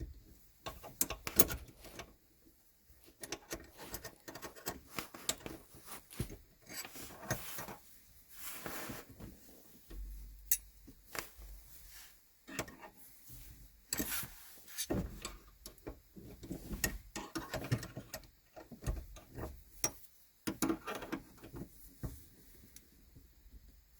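Hand work on a Dolomiti gear shifter's cable linkage as its lock nut is tightened: irregular clicks, taps and short scraping rubs of a tool and metal parts.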